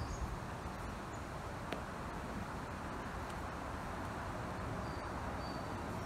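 Steady outdoor background noise, with one faint click about two seconds in.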